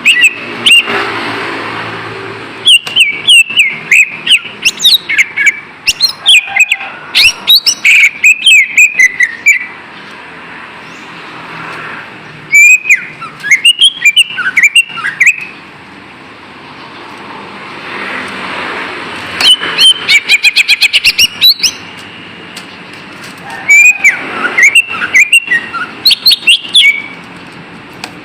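Cucak ijo (greater green leafbird) singing a lure song: clusters of rapid, varied whistles and chirps that glide up and down, coming in bursts a few seconds apart, with a steady background noise between them.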